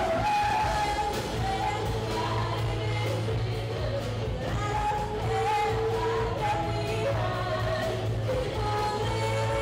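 A live rock band with female lead vocals: two young women singing into microphones over electric and acoustic guitars, bass and drums, played through PA speakers in a large gym.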